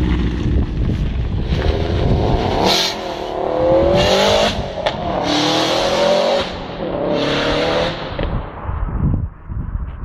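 Turbocharged Subaru WRX STI (GRB) flat-four with an external Tial 38 mm wastegate, accelerating hard away through several gears. Engine pitch climbs and drops at each shift, with a hissing rush from the wastegate at the top of each gear. The sound fades into the distance near the end.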